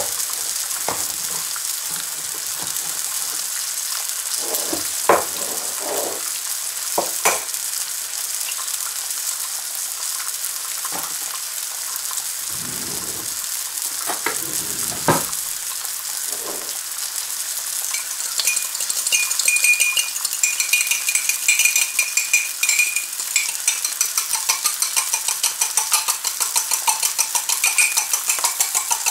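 Back bacon rashers and black pudding sizzling steadily in a carbon steel frying pan, with a few light knocks in the first half. From about two-thirds of the way through, a fast rhythmic crunching joins the sizzle as seasoning is ground by hand over the pan.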